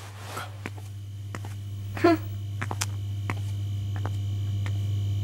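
A low, steady electrical hum that swells gradually louder, with scattered sharp clicks like footsteps on a hard floor. A brief vocal sound comes about two seconds in.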